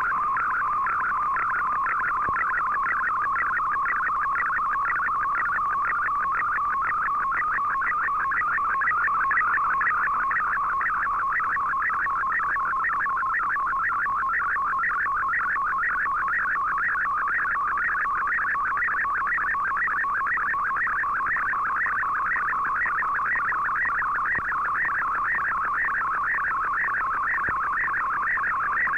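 MFSK64 digital picture transmission received on a shortwave receiver (Icom IC-R8600): a continuous, fast warble of rapidly shifting tones, the signal carrying an image as Fldigi decodes it.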